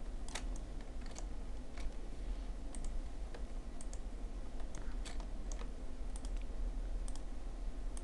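Computer keyboard keystrokes and clicks at irregular intervals, about a dozen in all, over a steady low hum.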